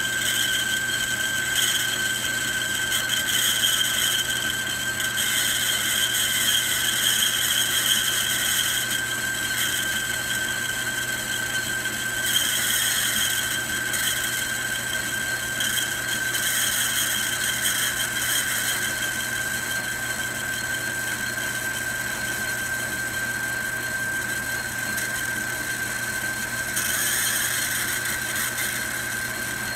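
Logan 10-inch metal lathe running and cutting a brass workpiece in the chuck, giving off a steady high-pitched squeal over the low hum of the machine.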